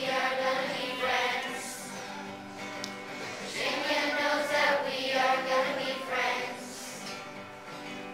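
A large children's choir singing a song together in phrases, accompanied by strummed acoustic guitars.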